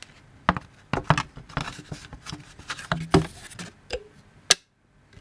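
Hands handling a thin printed sheet: rustling with a string of sharp taps and clicks, the loudest about a second in and about three seconds in, then a brief drop to silence near the end.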